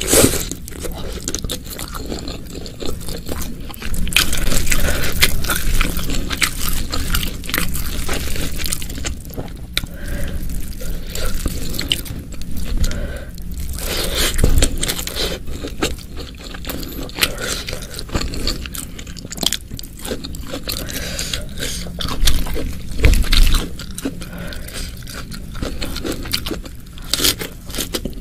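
Close-miked eating sounds: a person biting, crunching and chewing food, with many short crackles and a few louder crunches along the way.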